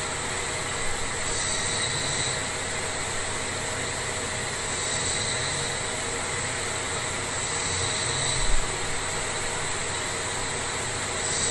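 A person snoring loudly, one snore about every three seconds, over a steady hiss.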